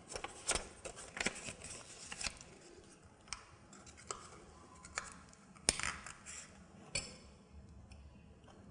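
Scattered light clicks and rustles of metal tongs and a paper strip being handled against a glass tumbler, with a small cluster of louder clicks near the end.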